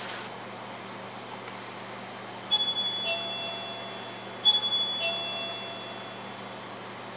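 Electronic two-tone door-entry chime sounding twice, about two seconds apart, each a high note followed by a lower one that rings on, over a steady hum.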